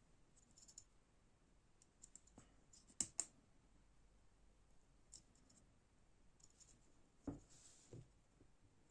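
Quiet handling of a small folding knife: two sharp clicks in quick succession about three seconds in, then two soft knocks near the end, with faint scraping between.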